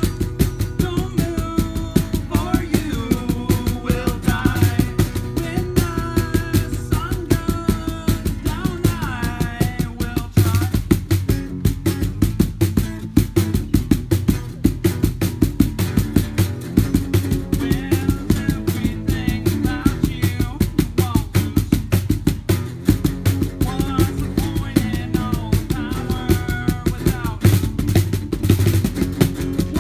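Acoustic band playing: two acoustic guitars strummed over a fast, steady hand-percussion beat.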